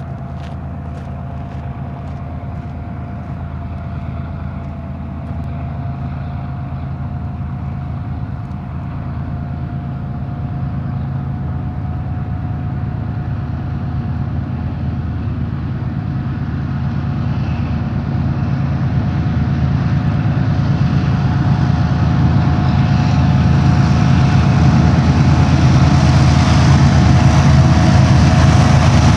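Lead GE diesel locomotives of a BNSF intermodal train (ES44C4s, a Dash 9-44CW and an ES44AC) approaching, their engine rumble growing steadily louder as the train draws near.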